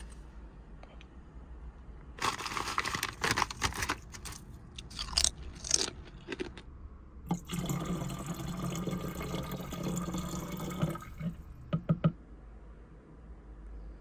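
A person eating hot noodle soup: short bursts of chewing and slurping, then a longer stretch of about four seconds past the middle, ending in a few sharp clicks.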